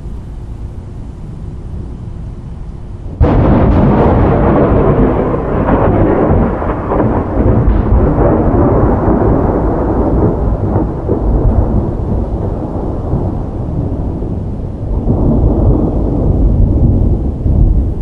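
Loud thunder: a sudden crack about three seconds in, then a long rolling rumble that slowly fades and swells again near the end.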